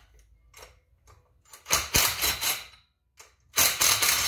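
Cordless impact driver hammering on the engine's 10 mm bolts to break them loose: two short rattling bursts, about two seconds in and again about three and a half seconds in.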